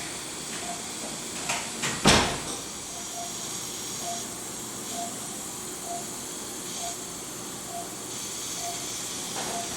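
Operating-room patient monitor beeping with the heartbeat: a short mid-pitched beep a little faster than once a second, over a steady hiss. A sharp knock, the loudest sound, comes about two seconds in, just after two lighter clicks.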